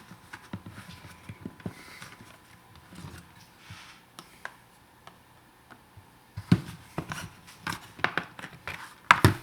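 Plastic parts of a disassembled sun visor being handled by hand: scattered light clicks, taps and scrapes, with a run of sharper knocks in the last three seconds.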